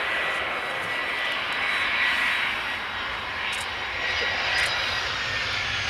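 Airbus A320's IAE V2500 jet engines running steadily through the flare and touchdown, a dense rush with a thin high whine on top. The thrust is still up at touchdown, which the uploader calls a poor landing with the thrust reduced too late.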